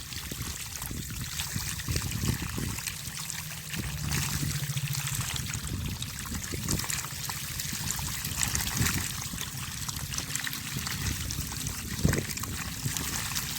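Water trickling steadily, with a scatter of small splashes and a sharper splash about twelve seconds in.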